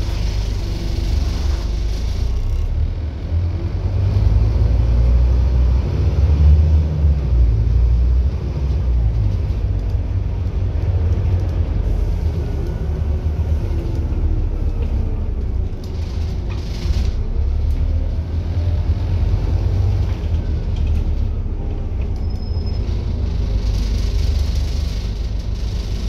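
Scania N230UD double-decker bus's rear-mounted diesel engine and road noise, heard inside the passenger cabin as a steady low rumble. It swells for a few seconds early on, and the engine pitch rises and falls with speed.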